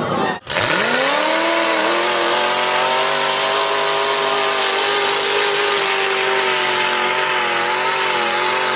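A mud truck's engine revving hard and held at high revs as the truck plows through a water-filled mud pit. After a brief break in the sound about half a second in, the engine climbs in pitch, then holds high and steady, wavering slightly, over a dense hiss.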